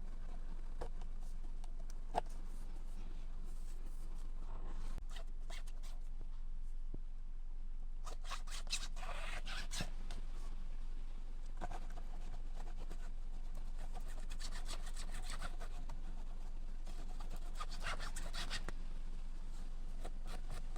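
Hands working on a steering wheel: bursts of rubbing and scraping strokes with scattered small clicks, over a steady low hum.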